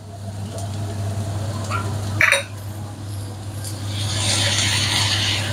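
Chicken broth poured from a glass jar into a hot frying pan of rice and mushrooms, hissing as it hits the pan from about four seconds in, over a steady low hum. A brief sharp sound about two seconds in.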